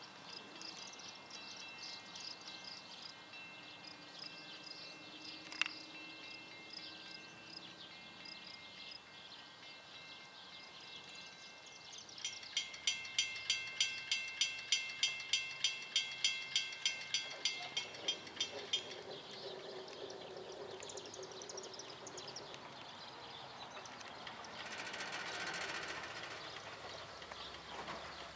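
Approaching Amtrak passenger train, with a bell ringing evenly about two and a half strikes a second for some six seconds midway. Birds chirp in the background before the bell, and a short rushing swell comes near the end.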